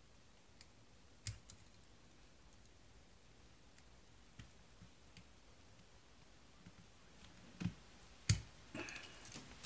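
A few sharp metal clicks as a steel tool presses and slips against a Ruger Security Six revolver's frame, pushing on the trigger-group latch button to start the trigger group out. A faint click about a second in, then louder ones near the end, the loudest about eight seconds in.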